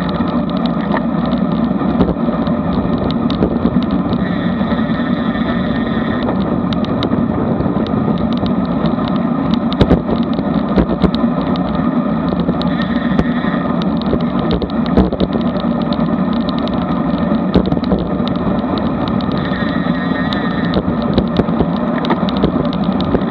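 Wind rushing over a camera microphone mounted on a road bike moving at about 21 mph, together with tyre noise on asphalt: a steady, loud rushing noise with scattered small knocks from the road.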